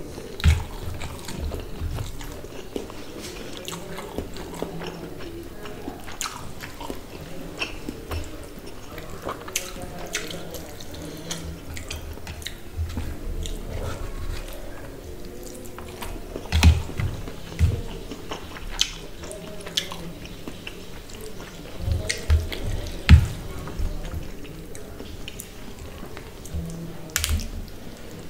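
Close-miked eating by hand: fingers squishing and mixing rice with fish curry on a metal plate, with wet clicks, chewing and a few low thumps, the loudest about two-thirds of the way through.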